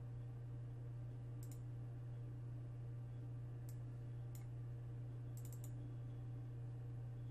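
Computer mouse clicks: a double click about a second and a half in, single clicks near the middle, and a quick run of three or four clicks past five seconds, all over a steady low electrical hum.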